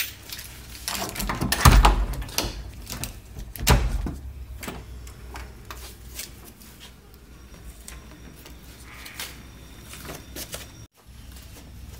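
Hotel room door being worked: clicks and knocks of the knob and latch as the door is opened and pulled to. Two louder thumps come in the first four seconds.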